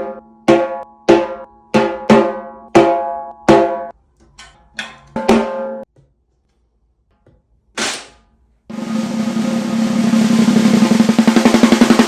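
Snare drum in a medium-high tuning, with crisp snare wires, played as single ringing strokes and a few softer ghost notes. After a pause comes a short bright hit, then a roll that swells louder over about three seconds.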